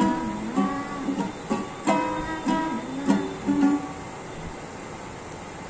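Ukulele strummed by a beginner, about seven chords in a slow, uneven rhythm over roughly four seconds, then left to ring out and fade.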